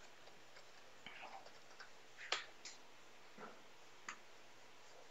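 A few isolated computer keyboard and mouse clicks, faint and spaced apart, the loudest about two and a half seconds in.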